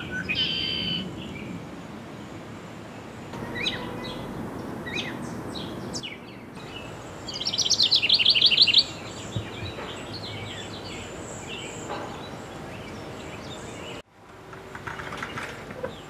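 Songbirds chirping and calling over a low background hum, with a loud, rapid trill of quick repeated high notes for about a second and a half near the middle.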